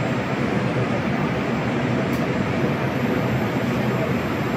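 Steady rumbling noise of a metro train standing at a station platform with its doors open, with a faint click about two seconds in.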